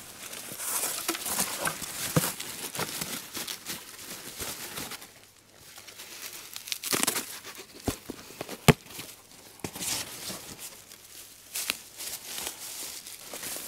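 Litter being picked up and handled: irregular crinkling and rustling of plastic, with scattered clicks and one sharp knock about two-thirds of the way through.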